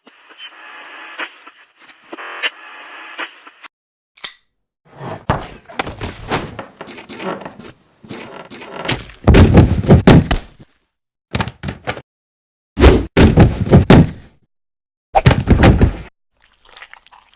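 Sound effects for stop-motion animation: a band of hiss for the first few seconds, then a run of thuds, knocks and crashing clatters with short silences between them, the heaviest hits about halfway through and again near three-quarters of the way.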